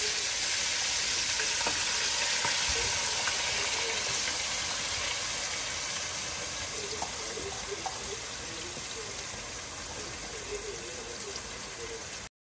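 Beef and chopped onion frying in very hot oil in a pot, a dense sizzle that slowly dies down as the cold onion lowers the oil's temperature, with a few small clicks. The sizzle cuts off suddenly shortly before the end.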